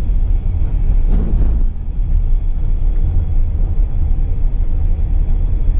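Car driving along a dirt road, heard from inside the cabin: a loud, steady low rumble of tyres on the dirt and the running engine.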